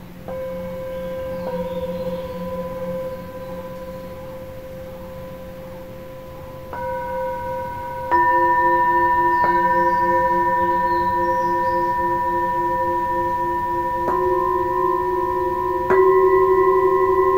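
Hand-hammered Himalayan singing bowls struck one after another with a mallet, about seven strikes. Each strike leaves a long ringing tone, and the tones overlap and waver slowly. The strikes about eight seconds in and near the end are the loudest.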